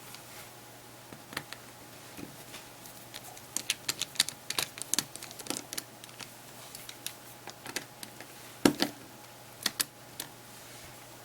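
Irregular small clicks and taps of hand tools and plastic parts inside a Samsung Galaxy Player 5.0 being taken apart. The clicks come thickest a few seconds in, and the single loudest tap comes about two-thirds of the way through, over a faint steady hum.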